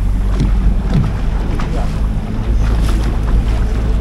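Small sightseeing boat's engine running steadily at cruising speed, a low hum, with wind buffeting the microphone.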